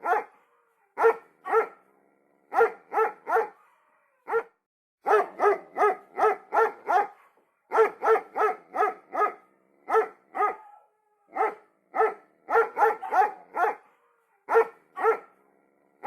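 A dog barking repeatedly, in quick runs of two to five short barks with brief pauses between runs.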